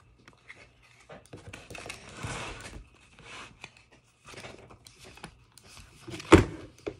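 Handling noises: light rustling and scattered small clicks, with a longer rustle about two seconds in and one louder knock a little after six seconds.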